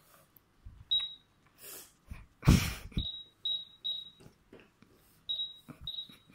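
Toy cash register beeping as its number keys are pressed: about six short high beeps at irregular intervals, one per key press. A brief loud rush of noise comes about two and a half seconds in.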